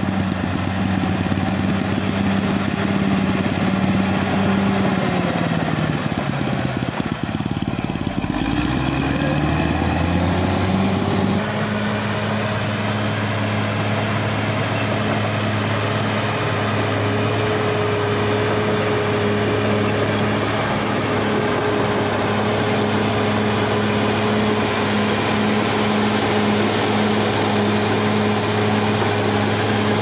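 Caterpillar D6R XL crawler dozer's diesel engine running steadily as it works. About five seconds in, the engine note sags and then climbs back up, and about a third of the way through the sound changes abruptly before it settles into a steady run again.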